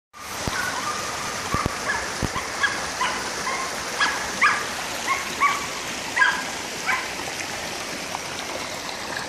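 Australian Shepherd dogs barking: a run of about fifteen short, high barks that stops about seven seconds in, over a steady hiss.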